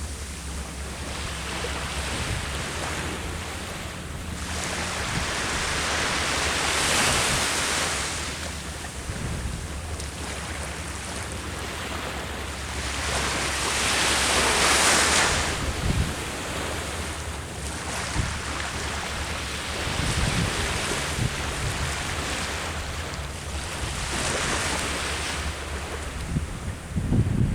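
Sea waves breaking on the shore, the surf swelling about every seven seconds, with wind rumbling on the microphone, strongest near the end.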